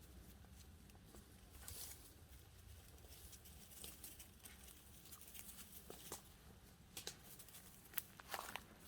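Faint, scattered rustles and light crackles of forest-floor litter, a few sharper ticks in the second half.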